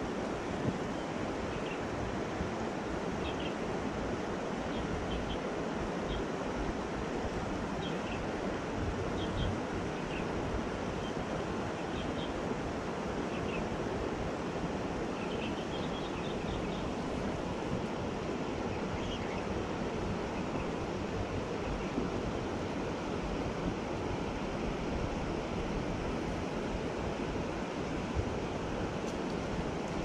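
Shallow river riffle: a steady rush of water flowing over rocks.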